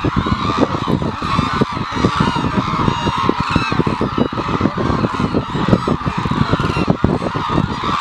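A large mixed flock of white-naped and hooded cranes calling continuously, many honking and trumpeting calls overlapping into a dense chorus, over a steady low rumble.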